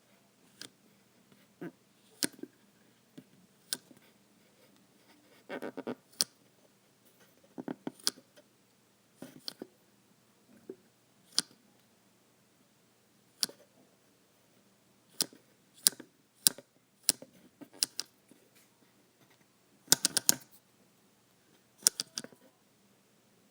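Ceiling fan speed regulator being worked on a switchboard, clicking as its knob is stepped through the fan speeds: sharp single clicks every second or two, with a few quick runs of several clicks in a row.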